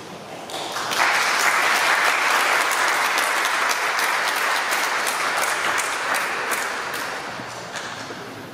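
Congregation applauding: the clapping starts about a second in, holds steady, and fades away near the end.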